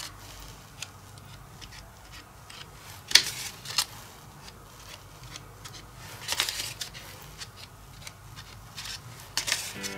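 White cardstock rustling and scraping as it is handled and pressed together while being glued, in a few brief bursts. The loudest comes about three seconds in.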